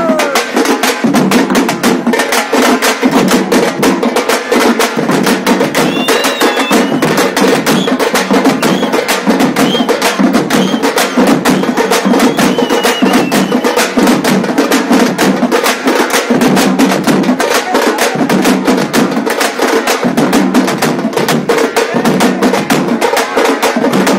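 Group of tamate frame drums beaten with sticks in a loud, fast, unbroken rhythm of dense strokes.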